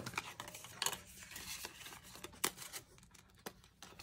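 Hands handling a laminated card, the plastic pockets of a cash binder and paper banknotes: soft rustling and crinkling, with a few sharp taps and clicks about a second apart.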